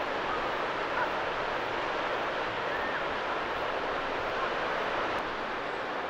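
Steady outdoor wash of sea surf and wind, even in level with no distinct events.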